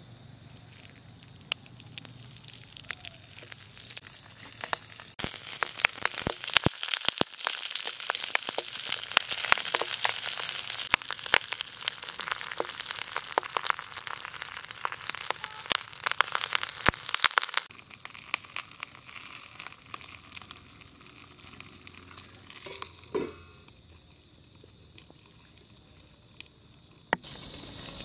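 Banana-leaf parcels of fish sizzling and crackling in hot mustard oil in a wok, with many sharp spits. The frying is faint at first, grows loud about five seconds in, then drops suddenly to a faint sizzle some twelve seconds later; a brief knock comes near the end.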